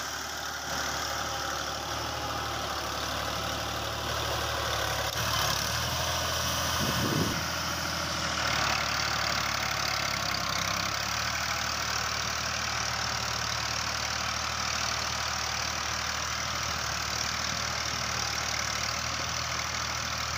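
Fiat 480 tractor's three-cylinder diesel engine running steadily under load, pulling a spring-tine cultivator through the soil.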